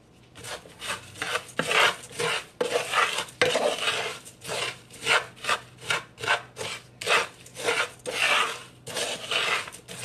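Wooden spoon stirring dry TVP crumbles, rolled oats and chopped onion in a nonstick frying pan: repeated gritty scraping and rustling strokes, about two a second.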